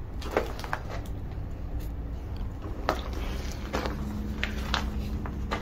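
Low steady rumble with a few faint, scattered clicks and taps; a faint steady hum comes in about halfway through.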